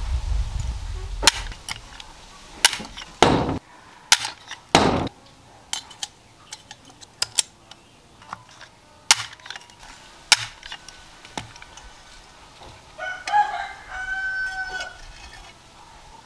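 Aluminium chassis rails and loose rivets clicking and knocking against each other and the wooden plank as the frame pieces are handled and fitted together, in scattered sharp strikes. Late on, a rooster crows once, a call of about two seconds.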